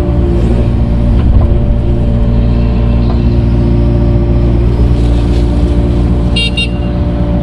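Excavator's diesel engine running steadily under load while digging and swinging dirt. A brief, stuttering high-pitched chirp sounds near the end.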